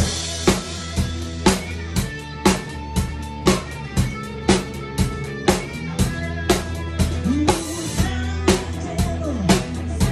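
Rock drum kit playing a steady beat, bass drum and snare about two hits a second, over sustained bass notes and other instruments, with a voice sliding in pitch in the last few seconds.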